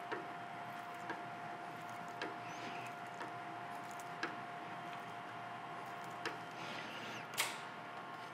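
A blind hole being hand-tapped with a sharp bottoming tap guided in the mill spindle: small metallic clicks about once a second as the tap wrench is turned, with a sharper click near the end, over a steady hum.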